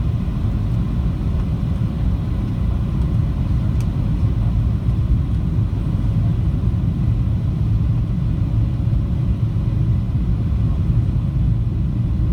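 Steady low rumble inside the cabin of a Boeing 737-700 airliner in flight: engine and airflow noise, even and unchanging.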